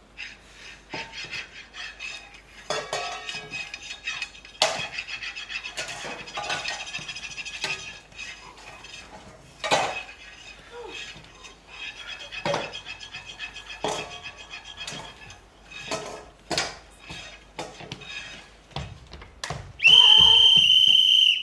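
Irregular clinking and clattering of dishes and cutlery, many strikes ringing on briefly. Near the end comes a loud, shrill, steady high tone lasting about a second and a half.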